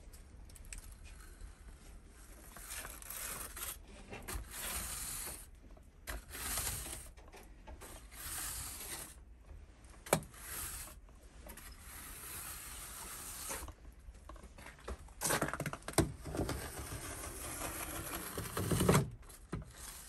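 Bristle brush on a long handle sweeping snow off a brick wall: a series of scraping swishes, each about a second long, with a few sharp knocks of the brush against the wall or frame.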